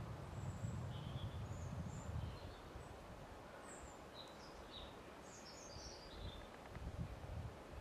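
Small birds chirping, many short high calls scattered throughout, over a low rumble that eases after about two seconds and returns briefly near the end.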